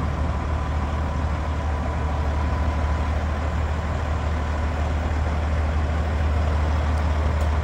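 Semi truck's diesel engine running steadily with a low rumble as the tractor-trailer moves slowly, pulling a heavily loaded flatbed.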